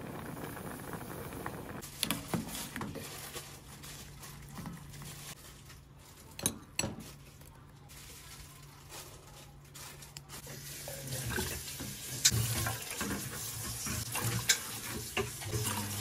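Cooking sounds: rice bubbling at the boil in a pot, then sharp metal clinks of a wire strainer and pot. About two-thirds of the way through, liquid splashes as it is poured into a pot, with more clinks of a ladle on metal.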